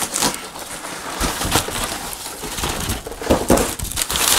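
Packaging rustling and crinkling in irregular bursts as a toy box is unpacked and emptied.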